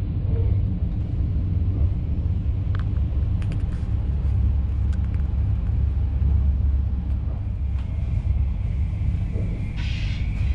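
Steady low rumble of a moving passenger train carriage on the rails, heard from inside the coach, with a few faint clicks. Near the end a brighter hiss comes in.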